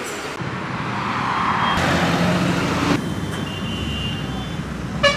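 Road traffic running past, with a short car-horn toot near the end.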